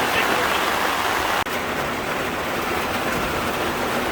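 A steady rushing noise without a clear pitch, cut by a sudden brief dropout about a second and a half in.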